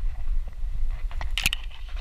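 Long grass rustling and scraping against a GoPro camera housing worn on a dog's harness as the dog pushes through it, over a steady low rumble of wind and movement on the microphone. A sharp crackle of stems dragging across the case comes about one and a half seconds in.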